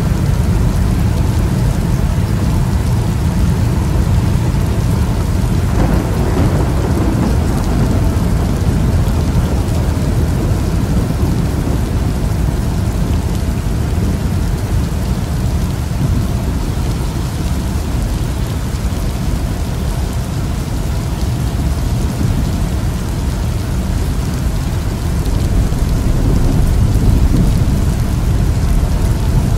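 Thunderstorm heard from inside a moving car: a steady deep rumbling noise of rain and thunder, with a sudden stronger rumble about six seconds in.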